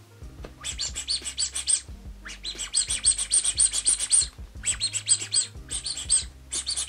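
Rubber duck squeaking in quick runs of sharp, high squeaks, about eight a second, in several bursts, over quiet background music.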